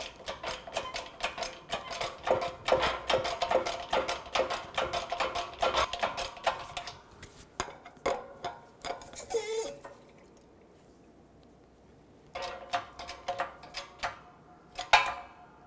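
Hydraulic bottle-jack shop press being pumped by hand, pressing a wheel bearing into a steering knuckle: rapid metallic clicking and rattling from the pump handle and jack. There is a short squeak about nine seconds in, then a pause of a couple of seconds before more clicking.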